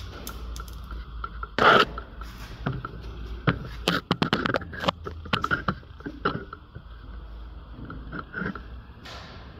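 Scraping, rustling and sharp knocks of handling noise as a handheld phone is moved about, the loudest knock about two seconds in and a dense run of them in the middle. Under them is a low steady hum that fades about four seconds in.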